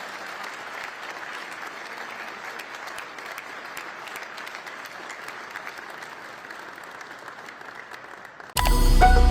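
An audience applauding steadily. Near the end a loud musical sting with bell-like chime tones cuts in suddenly.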